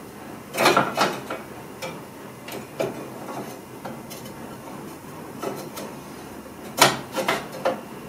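Metal parts of a stove clanking and knocking as they are fitted back into the firebox during reassembly after cleaning. Short clatters come a little after the start, once in the middle and in a cluster near the end.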